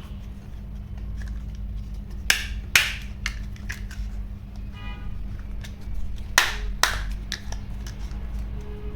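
Toys being handled: a few sharp clicks and knocks, two close together about two and a half seconds in and two more past six seconds, over a steady low hum, with a brief chime-like tone about five seconds in.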